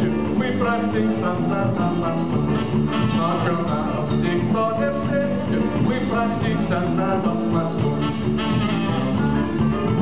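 A live band playing a song: a man singing over guitar and drums.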